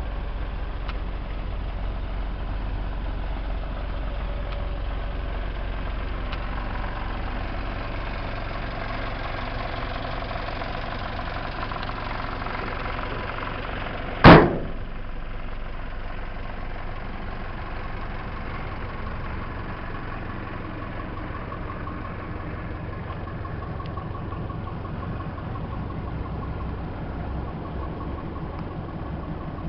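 Small fire truck's engine idling steadily, with a single loud slam about halfway through as the cab door is shut.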